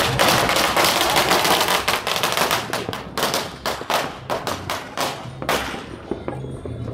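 A string of firecrackers going off in a rapid, irregular volley of sharp cracks, thinning out and getting quieter after about five seconds.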